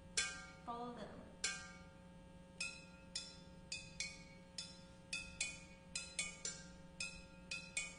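Terracotta flowerpots struck with sticks, single strokes each giving a short ringing pitch. The strokes start about a second apart and grow quicker and denser toward the end.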